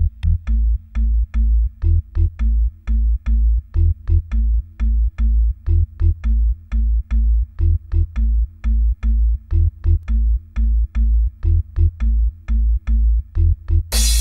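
Electronic background music with a steady, heavy bass beat and a quick, even click rhythm. A short burst of hissing noise breaks in just before the end.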